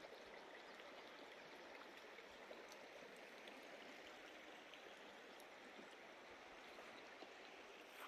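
Faint, steady rush of a wide river's current flowing past the bank, with a few light ticks scattered through it.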